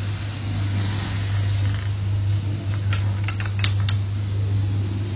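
Steady low mechanical hum, with a quick cluster of light clicks about three seconds in.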